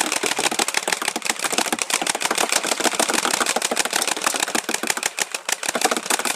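Airsoft rifle firing a long full-auto burst: a fast, continuous rattle of shots as the magazine runs down toward empty.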